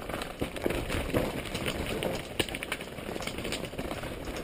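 Mountain bike riding down a dusty dirt trail: a steady rushing noise with tyres crunching over dirt and stones and the bike rattling and clicking over bumps.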